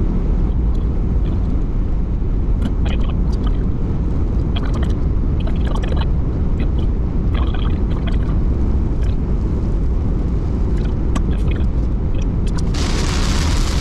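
A car driving, heard from inside the cabin: a steady low road and engine rumble with scattered sharp ticks. Near the end a loud steady hiss sets in suddenly, typical of heavy rain starting to hit the car.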